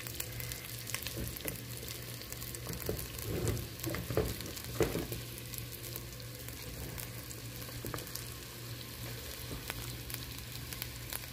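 Melted margarine and oil sizzling with a fine, steady crackle in a hot pot under lumps of boiled potato. A few louder stirring strokes come about three to five seconds in.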